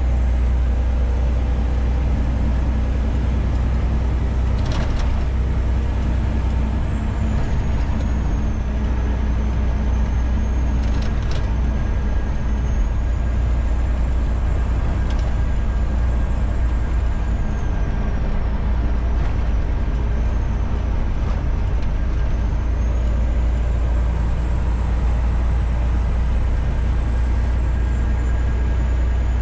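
Semi truck's diesel engine running steadily with road noise inside the cab, a thin high whine drifting up and down in pitch. A few short knocks, about five and eleven seconds in, from the truck hitting a rough road surface.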